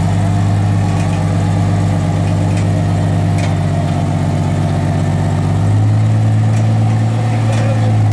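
Jeep Cherokee XJ rock crawler's engine running at low revs while crawling, a steady low note that rises a little and gets louder about six seconds in as throttle is added.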